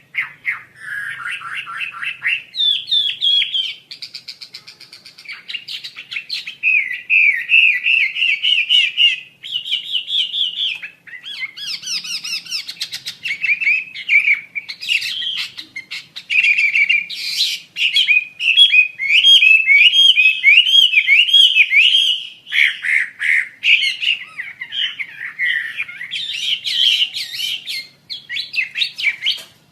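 Asian paradise flycatcher (wambi) singing continuously: quick chattering runs of whistled notes mixed with harsher, scratchy calls, the phrases changing every second or two, with a quieter stretch a few seconds in.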